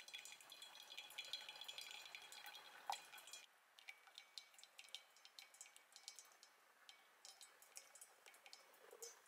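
Hot water poured from a kettle into a drip-bag coffee filter over a metal cup, stopping abruptly about three and a half seconds in. After that, coffee drips faintly and irregularly through the filter into the cup.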